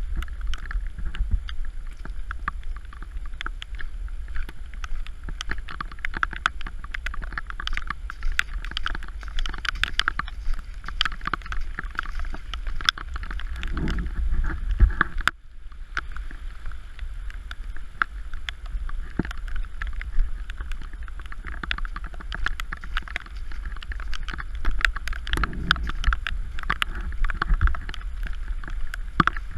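Heavy rain pouring and splattering in a dense patter of drops, with wind buffeting the microphone. The sound drops out briefly about halfway, then carries on the same.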